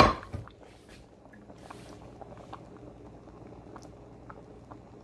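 A brief clatter of a utensil against a cooking pot at the very start, then a pot of tomato-based split-pea and potato stew simmering softly, with faint scattered pops of bubbles.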